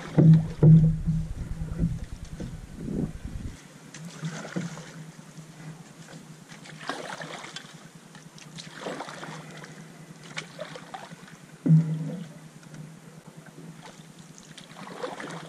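Canoe paddle strokes through the water, about one every two seconds, with a few louder knocks near the start and once about twelve seconds in.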